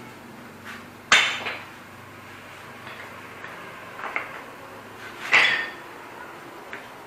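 Short wooden offcut blocks knocking together and clattering on a concrete floor as they are gathered up by hand. A few sharp knocks, the loudest about a second in and another about five seconds in.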